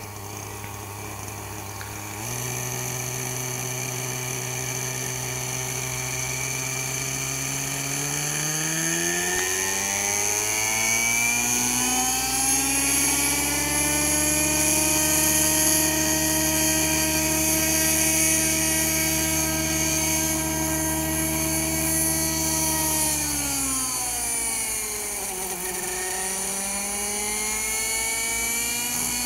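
Thunder Tiger Raptor 50 V2 RC helicopter's .50-size nitro two-stroke engine and rotors, run up for a hover. The engine note steps up about two seconds in, climbs steeply to a high steady whine that holds for about ten seconds while the helicopter hovers just off the ground, falls away for a couple of seconds, then starts climbing again near the end.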